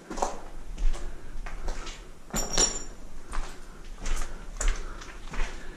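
Footsteps crunching and scuffing on a gritty cellar floor, with a brief high clink or squeak about two and a half seconds in.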